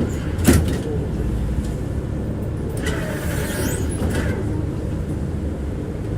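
Tram running on its rails, a steady low rumble of wheels and car body, with a sharp knock about half a second in and a brief hiss around three seconds in.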